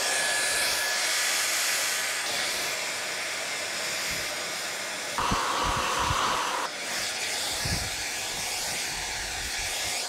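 An older handheld hairdryer blowing steadily while drying wet hair, with a faint whine in its sound for the first couple of seconds. Its tone shifts abruptly a little after five seconds in and again near seven seconds.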